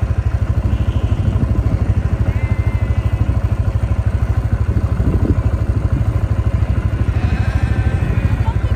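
An engine idling steadily with a fast, even low throb. Sheep bleat faintly over it twice, a few seconds in and again near the end.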